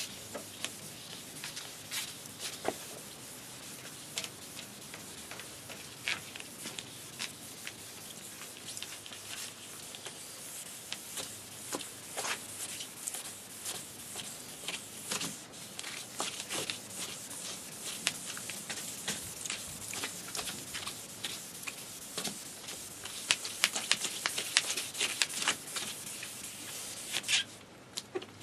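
Fine wet/dry sandpaper rubbed by hand over a plastic headlight lens: a steady scratchy hiss broken by many small scrapes, busier and louder near the end.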